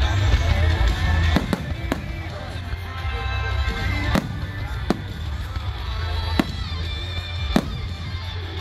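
Fireworks shells bursting with about six sharp bangs at uneven intervals, over music playing.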